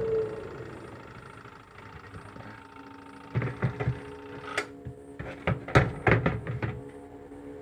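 A washing machine being handled during repair: a quick run of sharp knocks and clatter over the second half, over a low steady hum.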